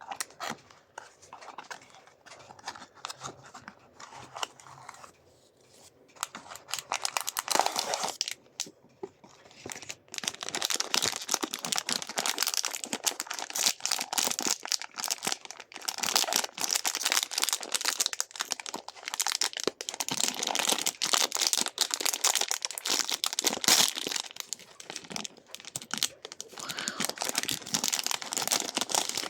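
Packaging being torn and crinkled open by hand: scattered crackles at first, then dense, continuous rustling and tearing from about ten seconds in.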